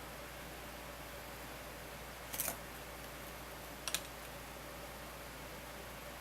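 Two short, sharp clicks about a second and a half apart from small hand tools being worked on the wires, over a steady background hiss.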